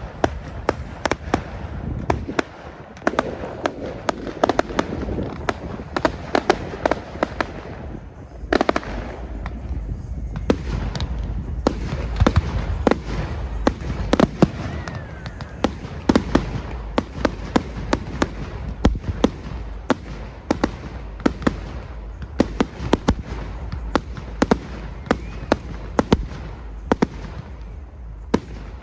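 Fireworks going off in a rapid barrage, a dense run of sharp bangs and crackles several times a second over a low rumble.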